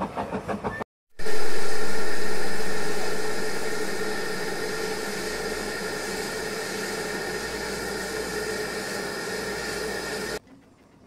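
Carriage wheels clicking rhythmically over the rail joints for the first second, then after a brief gap a loud steady hiss of steam from a standing Hunslet saddle-tank steam locomotive that has run short of steam. The hiss is strongest at first, eases over a few seconds and cuts off sharply near the end.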